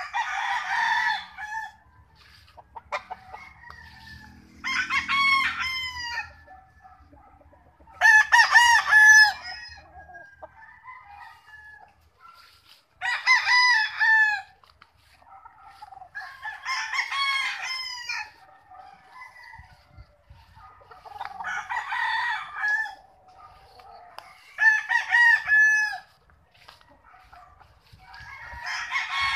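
Gamefowl roosters crowing in turn, about eight crows of a second or two each, every few seconds, some louder and nearer than others.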